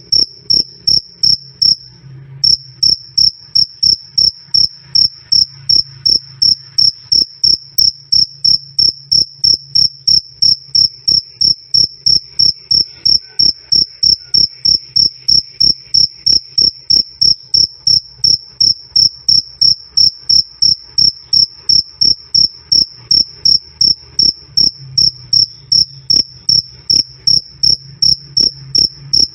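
Male cricket chirping loudly and clearly in an even rhythm, a little over two high-pitched chirps a second, with one brief pause about two seconds in.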